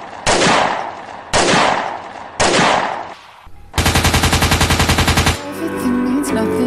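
Gunfire sound effects on a short-video soundtrack: single loud shots about a second apart, each ringing off, then a rapid machine-gun burst lasting about a second and a half. Music with a sung line comes in near the end.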